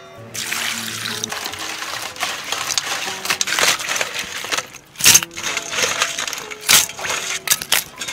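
Crabs being scrubbed by hand in water in a steel basin: splashing, with shells scraping and clattering against the metal, and two sharp clanks about five and seven seconds in.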